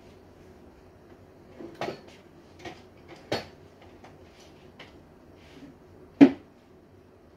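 Knocks and clunks from tidying at a wooden dressing table: drawers handled and items set down. About five separate knocks, the loudest a sharp thud about six seconds in.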